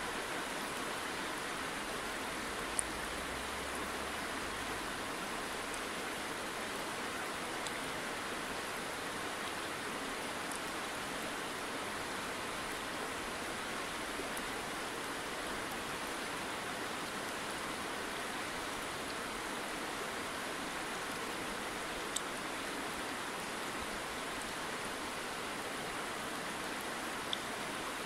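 Shallow river running over a stony bed: a steady rushing and babbling of water close by, with a few faint clicks here and there.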